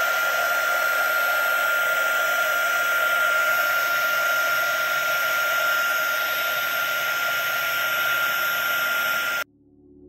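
A Wagner HT400 heat gun is running steadily, with a rush of air and a steady high motor whine. It stops abruptly near the end.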